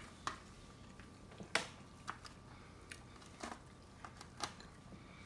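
A few short, sharp clicks and scrapes of a metal knife and fork against a plate as food is cut and picked up, the loudest about a second and a half in.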